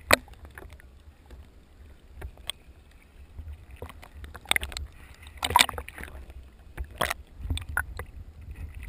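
Small sea waves slapping and splashing against a GoPro camera's waterproof housing floating at the surface. Irregular splashes, the loudest near the start and about halfway through, over a steady muffled low rumble.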